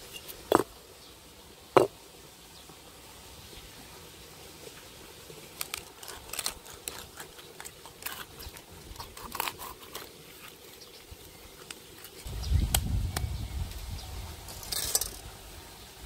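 A knife knocking sharply twice on a cutting board, then quieter scattered clicks and scrapes as a bass is filleted. A low rumble runs for about two seconds near the end.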